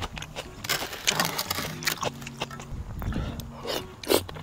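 Mouth sounds of someone eating cold chicken noodle soup (chogye guksu): noodles slurped, with a noisy stretch a second or so in, and chewing and smacking clicks.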